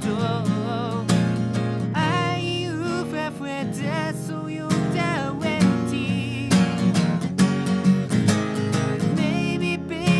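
Acoustic guitar accompaniment under a man's singing voice holding and bending wordless notes with vibrato.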